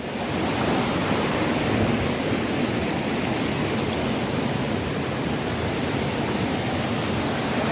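Rushing water of a small waterfall and stream: a steady rush that swells in the first half second and then holds level.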